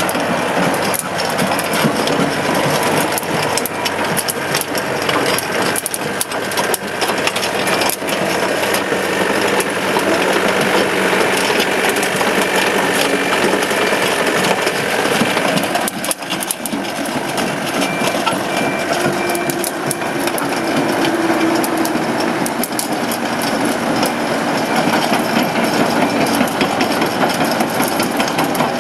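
Yanmar SV100 excavator running: a steady diesel engine with the machine working, and a dense metallic clatter with frequent sharp knocks throughout.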